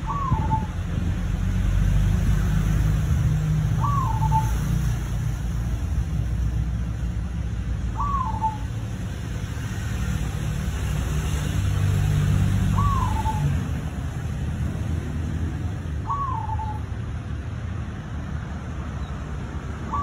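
Zebra dove (perkutut) of the Bali strain giving short, soft cooing calls, each a quick higher note dropping to a lower one, about one every four seconds. A steady low rumble runs underneath.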